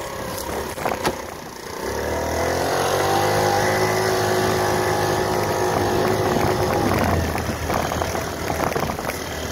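Wolf W1 GY6 50cc four-stroke scooter engine revving up about two seconds in, its pitch rising as it accelerates, then holding a steady drone for several seconds before easing off near the end. A few sharp pops come in the first second and a half.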